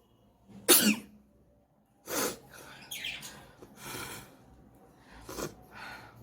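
A woman sneezing loudly about a second in, then a string of shorter sneezes and nose blows about once a second.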